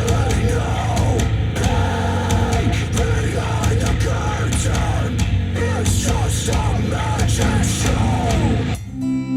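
Heavy rock song with distorted guitars, drums and vocals playing through Adam Audio A5X powered studio monitors. It stops abruptly near the end and a plucked acoustic guitar track begins.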